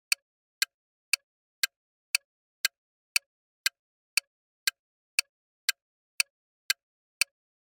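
Countdown timer sound effect ticking: sharp, evenly spaced clock ticks about twice a second, with silence between them.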